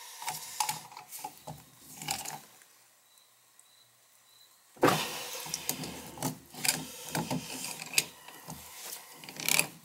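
Scratchy scraping and small clicks of a hand tool worked against the threads of a radiator valve fitting. It goes quiet for about two seconds midway, then starts again suddenly and louder.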